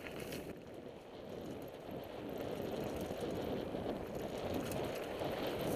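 Mountain bike rolling along a dirt singletrack: a steady rumble of tyres on dirt with wind on the camera microphone, getting louder about two seconds in.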